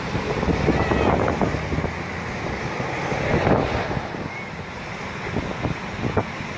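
Surf breaking and washing ashore under strong wind that buffets the microphone: a steady rushing noise with a low rumble, swelling briefly about three and a half seconds in.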